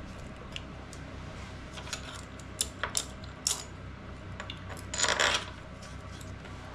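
Metal clicks and clinks from a tool and a Brembo front brake caliper being worked loose from the brake disc of a BMW R 1200 RS motorcycle, followed about five seconds in by a louder, short scraping rattle as the caliper comes off.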